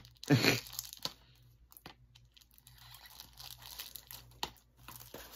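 Packaging being torn and crinkled while a disc case is opened, with a brief louder rustle just after the start, a few sharp clicks, and a long stretch of faint crackling over the second half.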